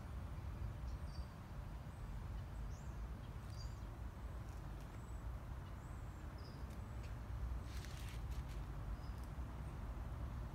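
Small birds giving short, high chirps scattered through, over a steady low rumble, with a few sharp clicks about eight seconds in.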